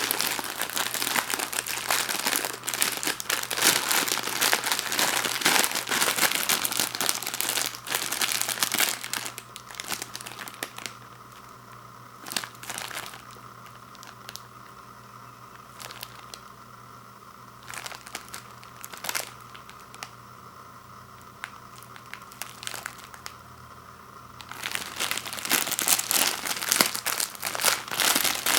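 Plastic wrapper of an instant ramen packet crinkling as it is handled. Busy crinkling for the first third or so, then a quieter stretch with only a few scattered crackles, then dense crinkling again near the end.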